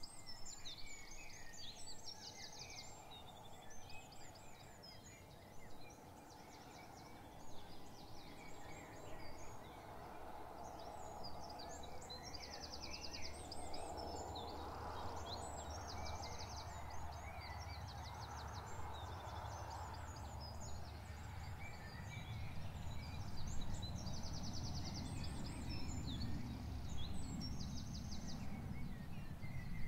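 Songbirds chirping and singing rapid trills, many calls overlapping throughout. Beneath them runs a low rumbling background that swells in the second half.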